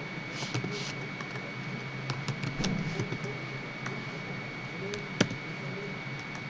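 Scattered clicks of a computer mouse and keyboard, with one sharper click about five seconds in, over a steady microphone hiss and a faint constant high whine.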